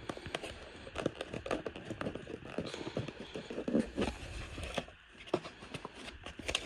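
Handling noise: a small tool case being turned over and opened, with irregular light clicks, taps and scrapes, and tools and cardboard shifting in a box.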